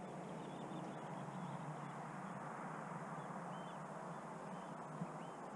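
Small birds chirping faintly: short high calls repeated every second or so over a steady rushing background noise.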